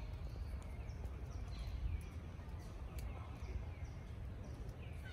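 A series of short, high chirping calls, each falling in pitch, repeating every half second or so over a steady low rumble.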